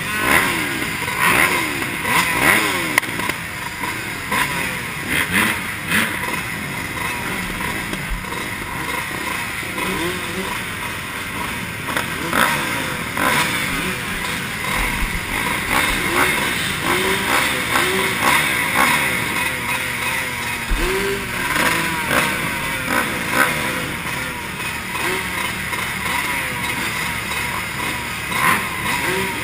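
A pack of dirt bike engines idling at a motocross starting gate, with throttles blipped in short rising-and-falling revs every second or two.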